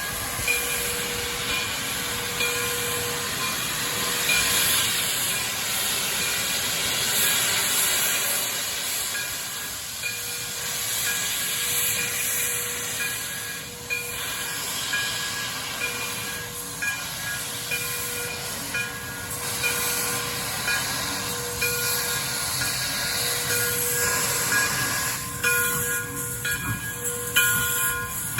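A train running past with a steady hiss over it, and a few sharp clicks near the end.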